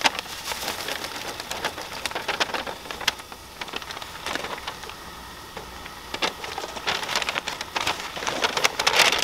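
Dense, irregular crackling and ticking, like a small fire or heating oil, mixed with the rustle of a paper sack of fish fry being handled.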